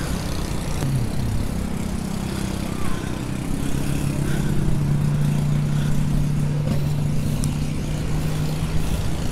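A motor vehicle engine running at a steady low hum, with a brief drop in pitch about a second in.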